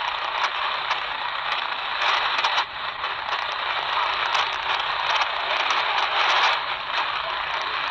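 Shortwave static and hiss from a Tecsun PL-368 portable radio tuned in upper sideband to the 8828 kHz VOLMET aviation weather broadcast, the weak announcer's voice buried in the noise with only occasional words faintly audible.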